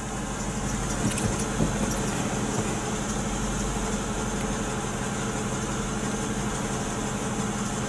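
Mercedes AMG 55 V8 engine idling steadily in park.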